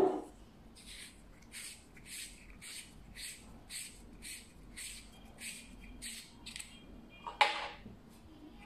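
A honeycomb anti-reflection device being twisted off the threaded objective end of a rifle scope: a run of short scrapes, about two a second. Near the end comes a sharp clack as the metal honeycomb is set down on the table.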